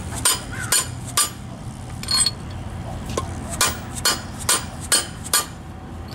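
A mallet strikes a steel bar and camper spring-shackle parts on a cinder block, about nine sharp metallic clanks with a brief ring. There are three quick blows, a single one about two seconds in, then five at roughly half-second spacing. The blows are pressing a new ridged shackle bolt into place to seat it.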